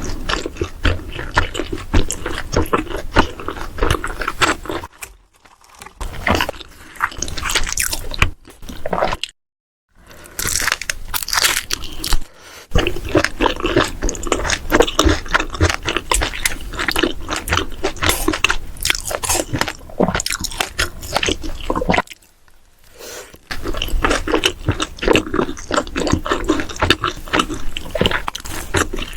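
Close-miked eating sounds: a person biting, crunching and chewing food in quick, irregular strokes, broken by a few short silent gaps.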